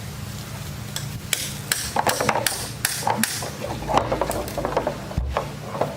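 Empty 55-gallon drums being handled: irregular knocks and clatter with scraping, starting about a second in and stopping just before the end, over a steady low hum.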